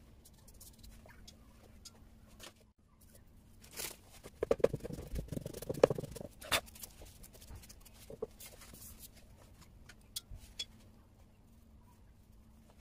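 A tissue crinkling and rustling as it is pressed and dabbed onto a watercolour painting to blot it. The sounds come in a cluster of crackly rustles about four to seven seconds in, with a few light ticks either side.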